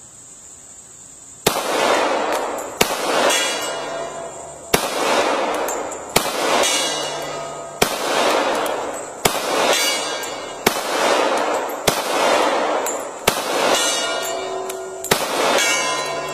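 A Glock 21 Gen 4 pistol in .45 ACP firing a slow string of about ten shots, roughly one every second and a half, starting about a second and a half in, each with a long echo. Several shots hit the steel gong target, which rings after the shot.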